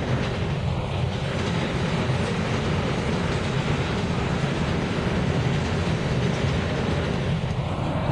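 Steady running noise of a moving New York City subway train heard from on board.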